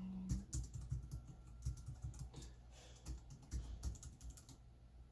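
Computer keyboard typing and mouse clicks, a rapid irregular run of short key clicks.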